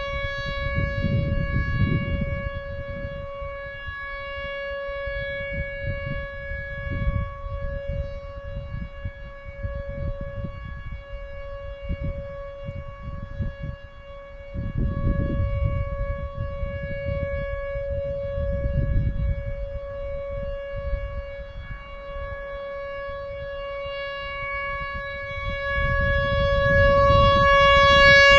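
Whelen Vortex R4 outdoor warning siren sounding its alert signal: one unbroken steady tone around 560 Hz that swells and fades as the rotating head turns, loudest near the end. A low rumbling noise comes and goes underneath.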